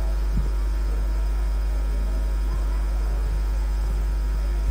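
Steady low hum from the microphone and PA system, with a few faint knocks.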